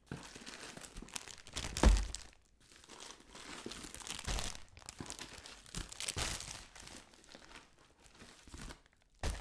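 Plastic bubble-wrap box liner and bagged produce crinkling and rustling in irregular bursts as items are pulled out of a cardboard box, with one dull thump about two seconds in.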